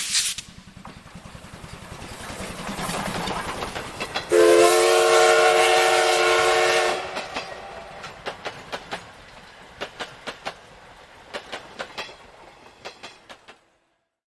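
A train approaching with a rising rumble, then a steam locomotive whistle blown once in a long chord of about two and a half seconds, followed by wheels clicking over rail joints, the clicks thinning out and fading as the train passes away.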